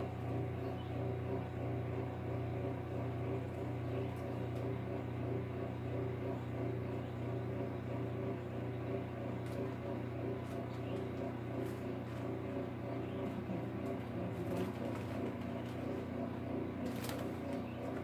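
A steady low hum with pigeons cooing softly, and brief rustles of newspaper and tissue as the bird is wiped clean.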